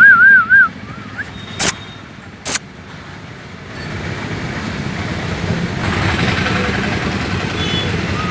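Labrador puppy whining: a loud, high warbling whine in the first half-second. Two sharp clicks follow, then a swell of steady traffic-like rumbling noise in the second half.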